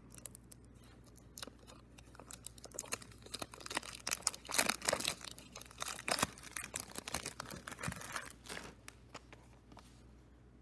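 Clear cellophane wrapper being torn and crinkled off a cassette tape case: a dense run of crackling and rustling that starts about a second and a half in, is loudest around the middle, and dies away near the end.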